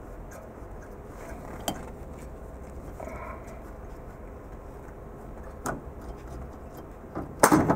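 Sheet-metal power input module being worked loose from a server-rack cabinet: a few faint clicks and a short scrape, then a loud metallic clatter near the end as it comes free.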